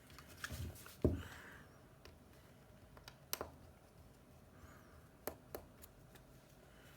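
Sparse small clicks and taps of tools and parts being handled, with one louder knock about a second in.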